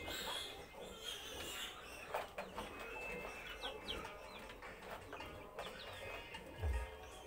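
Chickens clucking, with short high chirps in the middle and a low thump near the end.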